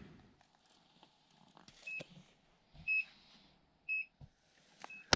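An electronic beeper chirps a short, high beep about once a second, four or five times. Faint knocks and thumps of handling gear on the ice come in between the beeps.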